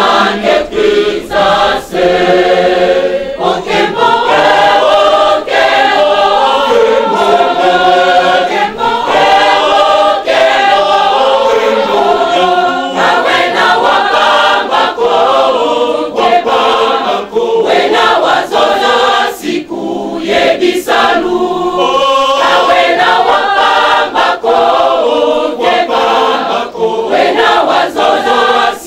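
Large church choir singing together, with brief pauses between phrases.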